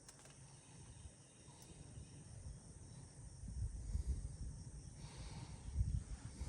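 Small waves lapping at the shore, a soft hiss that grows fuller about five seconds in, over uneven low rumbles that swell and fade.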